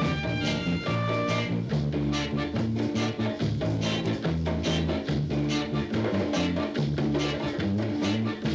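Roots reggae music with a heavy, moving bassline under a steady drum beat.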